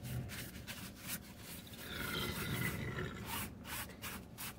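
Rubbing and rustling handling noise from someone moving things around inside a vehicle cab, with several short clicks and knocks, a few of them close together about three and a half seconds in.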